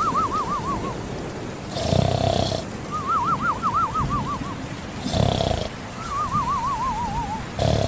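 Sleeping cat snoring in a steady cycle about every three seconds. Each cycle is a short rasping snore followed by a long wavering whistle that drifts slightly down in pitch.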